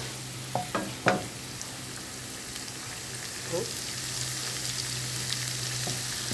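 Minced garlic sizzling steadily in oil and butter in a pan while being stirred, with the stirring utensil knocking against the pan twice about a second in.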